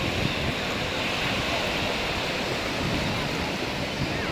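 Steady rush of sea surf breaking on the shore, with wind on the microphone.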